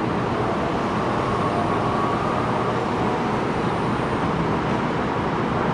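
Taiwan High Speed Rail 700T trainset pulling slowly into the platform: a steady rolling rumble, with a faint high whine briefly about a second or two in.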